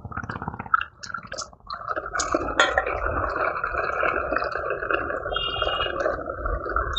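Toy tractor's small electric motor and plastic gears whirring steadily, starting about two seconds in after a few clicks.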